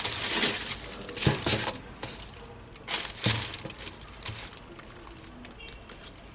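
Paper wrapping in a shoe box crinkling and rustling in irregular bursts, with a few sharp knocks, as the sneakers are handled; it gets quieter after about three seconds.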